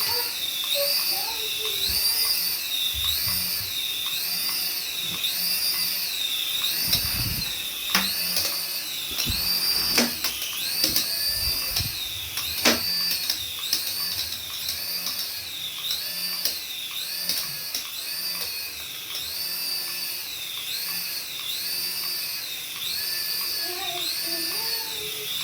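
Mini RC toy helicopter's small electric rotor motors whining at a high pitch, the pitch rising and falling evenly about three times every four seconds. A few knocks and thuds come between about 7 and 13 seconds in.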